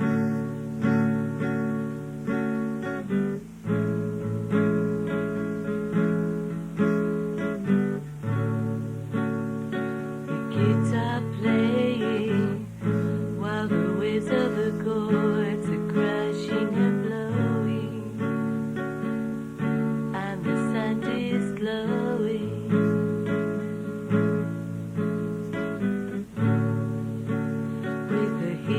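Background music: a song played on acoustic guitar, with strummed and plucked chords and no vocals.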